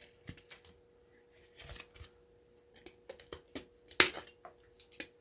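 Wire cutters snipping through the small wires on a circuit board: scattered faint clicks, with one louder snip about four seconds in.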